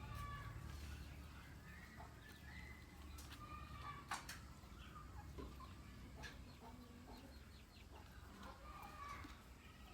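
Free-range chickens clucking, faint, with short calls scattered throughout and a few sharp clicks.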